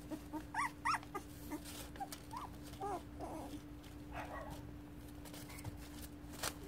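Three-and-a-half-week-old puppies giving short, high whimpers and squeaks, about half a dozen in the first four and a half seconds, with a few light clicks in between.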